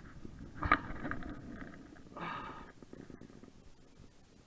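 A man breathing hard and giving two strained grunts as he hauls on a heavily bent sea-fishing rod against a big fish. The first grunt, under a second in, comes with a sharp knock; the second follows about a second and a half later.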